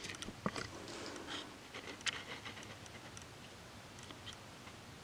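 Faint, scattered light clicks and taps from handling, most of them in the first two seconds, then quiet room tone.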